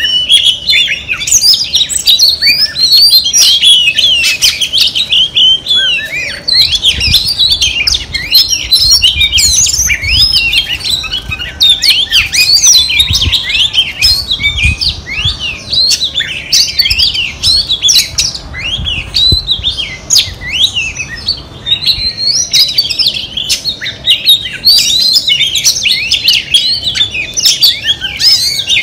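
Female Oriental magpie-robin singing a continuous, rapid, varied song of whistled notes and quick pitch glides, with hardly a break.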